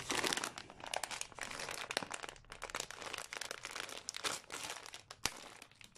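Plastic packaging of a towel set crinkling and rustling irregularly as it is handled, with one sharp click about five seconds in.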